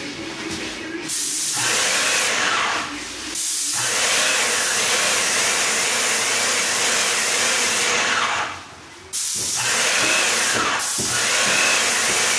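Airless paint sprayer gun hissing steadily as it sprays paint onto a wall, the spray cutting out briefly about three times as the trigger is let go.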